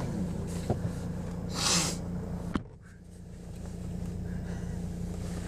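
Car engine idling, heard from inside the cabin as a steady low hum. A short hissing burst comes about a second and a half in, and a sharp click follows a second later.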